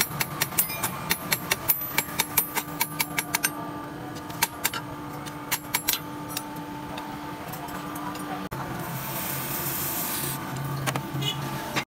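Hand hammer striking a red-hot steel chisel blank on an anvil in a run of quick, sharp blows, two to three a second, that grow lighter and stop. About two-thirds of the way in, a short hiss as the hot tip is quenched in a bucket of water.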